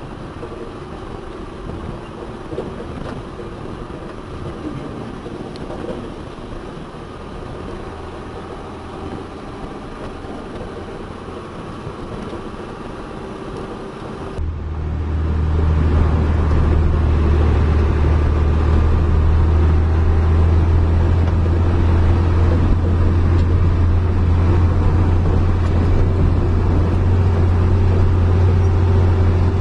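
Heavy diesel engines of construction machinery running. About halfway through, the sound cuts abruptly to a louder, steady, low drone of a diesel engine running close by.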